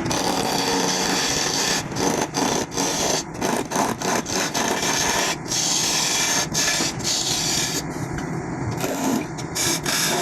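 Hand tool scraping and rubbing against wood in long strokes, broken by short pauses.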